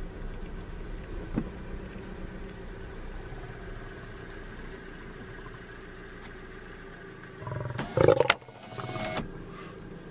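A steady low hum like an idling vehicle engine. About seven and a half seconds in, a loud animal roar lasts about a second, and a shorter, weaker one follows about a second later.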